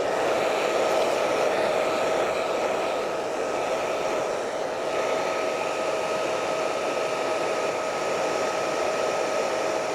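Hair dryer blowing steadily, a rush of air with a steady motor whine, used to heat and soften the adhesive holding an iPad's screen.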